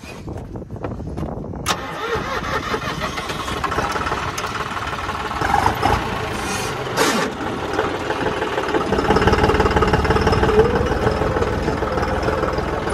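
John Deere 5405 tractor's three-cylinder diesel engine being started: a few clicks, then the engine catches about two seconds in and runs steadily, growing louder through the second half.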